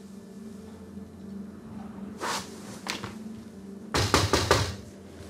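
Rapid loud banging on a door, a burst of about five strikes about four seconds in, after two softer thuds a little earlier, over a low steady hum.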